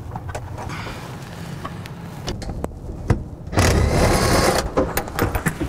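Cordless impact driver hammering on a propeller-shaft coupling bolt in a burst of about a second past the middle, loosening it as the drive train is taken out. Scattered clicks and knocks of tools on metal come before and after.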